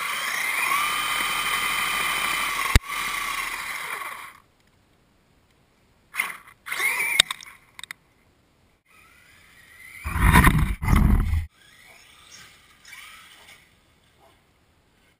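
Electric RC monster truck's brushless motor whining up and down in pitch while the truck is held and its tyres spin in the dirt, with a sharp click about three seconds in; the whine stops after about four seconds. Short bursts of motor whine and tyre noise follow, the loudest a low rumble about ten to eleven seconds in.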